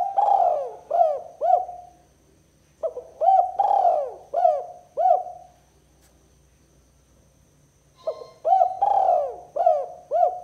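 Spotted dove (tekukur) cooing in three bouts of several short, arched coos each, with pauses of a second or more between bouts.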